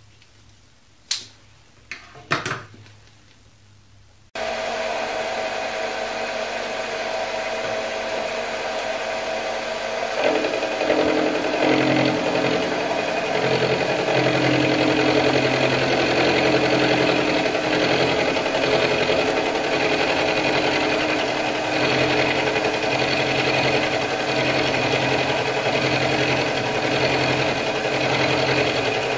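Optimum D180 x 300 mini lathe used for milling. A few sharp knocks come first. The machine then starts running abruptly about four seconds in, with a steady motor whine. About ten seconds in, the end mill in the spindle bites into the metal block and the sound grows louder, with a steady cutting noise over the whine.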